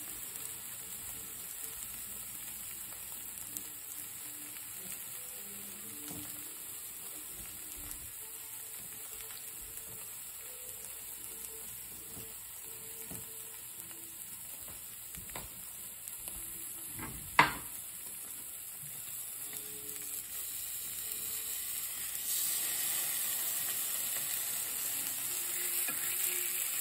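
Slices of queso fresco sizzling in a dry frying pan without oil, which the cook says was not heated enough; the steady sizzle grows louder in the last few seconds. A single sharp click about two-thirds of the way through.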